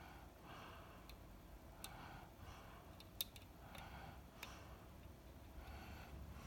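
Faint clicks and light scratching of a lock pick working the pins inside a Schlage KIK lock cylinder, with a few sharper clicks.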